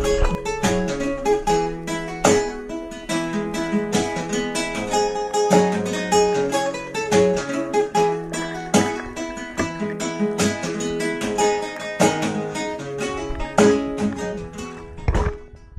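Background music: fast plucked acoustic guitar, ending on a last strummed chord that dies away.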